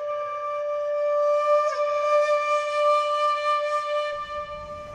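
Background music: a flute-like wind instrument holding one long note, with a brief wobble in pitch a little under two seconds in.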